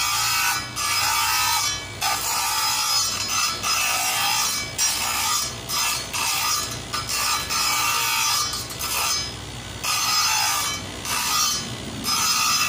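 Small circular saw of an optician's lens-cutting machine cutting a plastic eyeglass lens blank to rough shape. It runs as a harsh rasping in repeated stretches with short breaks as the lens is fed into the blade and turned.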